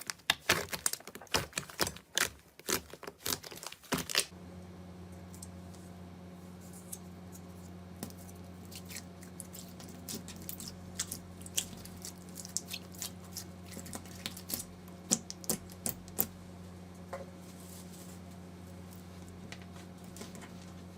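Slime being squeezed and pressed by hand: dense crackling and clicking for about four seconds, then sparse small pops and clicks over a steady low hum.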